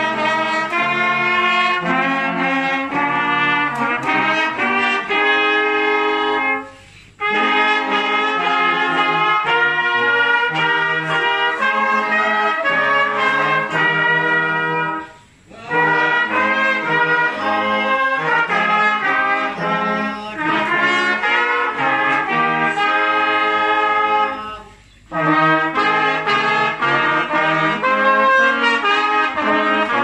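Brass band playing a piece together, trumpets leading, with the music stopping briefly three times between phrases.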